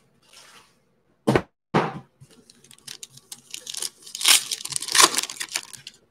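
Foil trading-card pack wrapper being torn open and crinkled by hand: two sharp cracks a little over a second in, then a busy run of crinkling and tearing that is loudest near the end.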